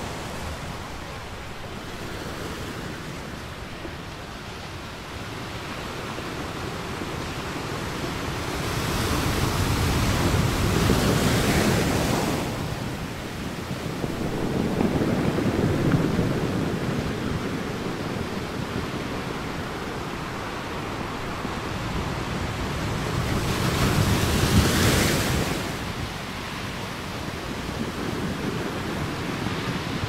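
Ocean surf washing onto a sandy beach. A steady hiss of breaking water swells into loud breaks twice, about ten seconds in and again around twenty-four seconds, with a smaller surge in between.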